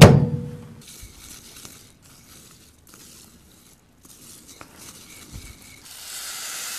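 An Admiral microwave door shuts with a sharp knock and a brief ring. Then comes faint scratchy rustling as dry rice is stirred with a spoon in a glass bowl. From about six seconds a steady hiss of liquid is poured from a metal bottle onto the rice.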